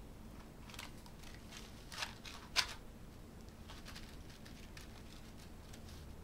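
Light clicks and rustles of hands handling a box of bamboo toothpicks, with two sharper clicks about two and two and a half seconds in.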